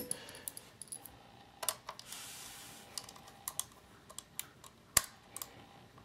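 Light, scattered clicks and taps of a small screwdriver and fingers on an HP Envy laptop's plastic underside as the memory-cover screw is driven back in. There is a brief hiss about two seconds in and a sharper click near five seconds.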